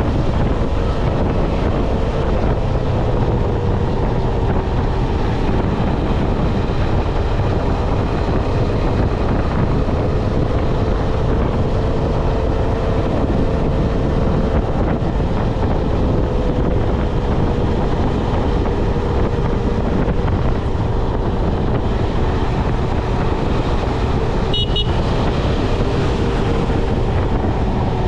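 KTM 250 Adventure's single-cylinder engine running steadily at highway cruising speed, with wind rushing over the microphone. A brief high beeping comes near the end.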